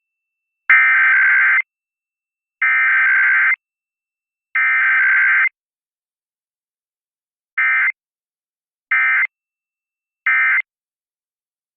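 Emergency Alert System SAME data bursts, a harsh buzzy two-tone digital warble. Three bursts of about a second each, about 2 s apart, carry the encoded header of the test alert. About 7 seconds in come three short bursts about a second and a half apart: the end-of-message code.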